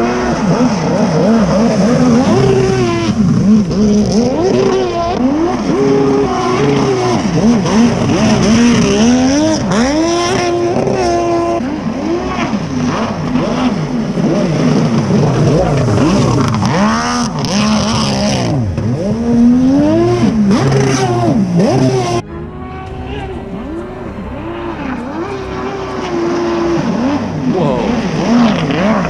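Kawasaki 650SX stand-up jet ski with a swapped-in 1100cc three-cylinder two-stroke engine, running loud, its revs climbing and dropping again and again through a timed lap. About three-quarters of the way through, the sound abruptly turns quieter and duller.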